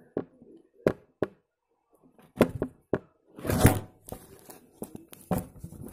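Handling noise from a camera being picked up and moved: scattered sharp clicks and knocks of hard plastic, with a short rustling scrape about three and a half seconds in.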